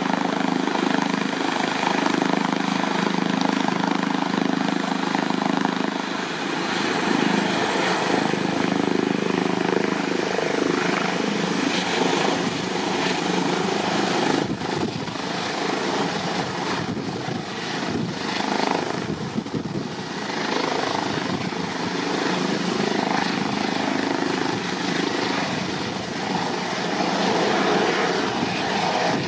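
Airbus H145 air-ambulance helicopter lifting off and hovering low: steady rotor and turbine noise with a high turbine whine that climbs slightly in pitch about ten seconds in.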